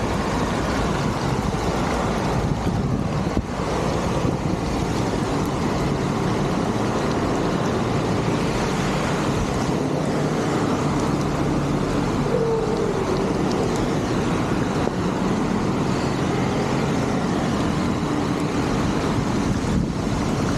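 Steady, loud rush of flowing water, unbroken throughout.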